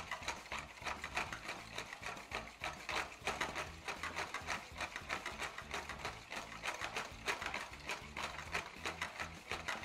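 Metal balloon whisk beating egg yolks, mustard and salt in a bowl, its wires clicking against the bowl several times a second.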